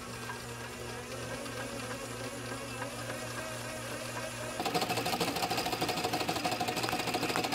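Electric line-spooling machine running steadily, winding braided line onto an Okuma Cavalla two-speed conventional reel as a whirring mechanical hum. It grows louder and busier about halfway through.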